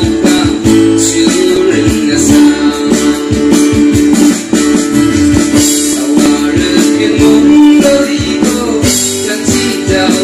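Live band music: acoustic guitar and bass guitar playing with a keyboard over a steady beat.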